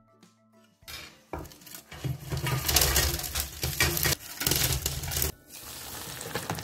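Hot oil sizzling as breaded coxinhas deep-fry in a pot. The sizzle starts about a second in, is loud and even, drops suddenly a little past five seconds and carries on more softly.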